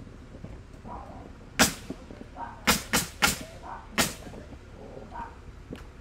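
Workers' banging: five sharp knocks or bangs in about two and a half seconds, each dying away quickly.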